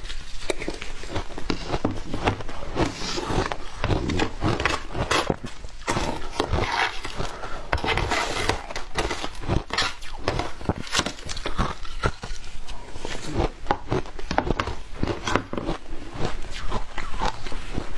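Close-miked crunching of shaved ice being chewed: dense, irregular crackling bites.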